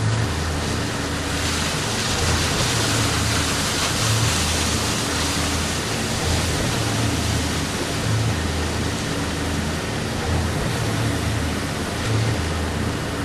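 Powerboat running under way: a steady low engine drone beneath a continuous rush of water and wind.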